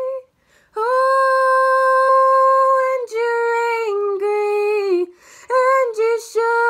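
A woman singing unaccompanied: a long held note beginning about a second in, then a run of shorter notes stepping down in pitch.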